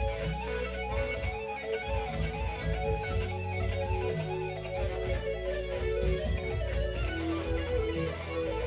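Live band music with no vocals: an electric guitar plays a wavering lead line over held notes and a bass guitar.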